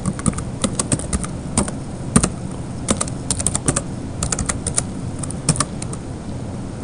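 Computer keyboard keys clicking in quick, irregular runs as a command is typed, stopping after a last keystroke about five and a half seconds in. Steady background noise runs underneath.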